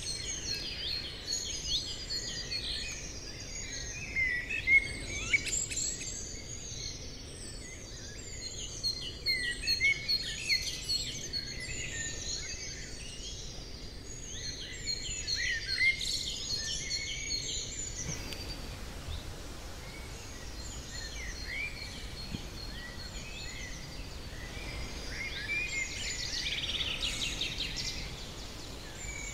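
Many birds chirping and calling together in a dense chorus of short, high chirps over a faint steady hiss. The chorus thins out somewhat past the middle, with a quick trill near the end.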